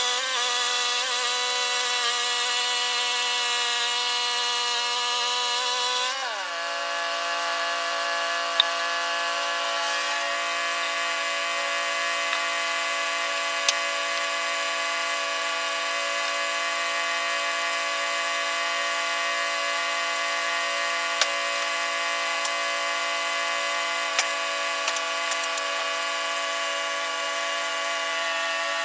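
Portable sawmill's engine running steadily while sawing through a white oak log. About six seconds in its pitch drops and then holds lower, as the engine takes the load of the cut. A few faint sharp ticks sound over it.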